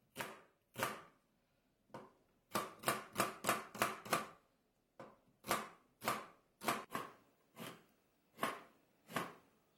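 Kitchen knife slicing an onion on a plastic cutting board, each cut a sharp knock on the board: a quick run of cuts a few seconds in, then slower, evenly spaced cuts.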